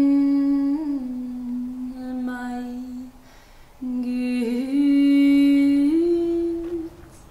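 A woman singing a slow hymn unaccompanied, holding long steady notes, in two phrases with a short breath pause about three seconds in.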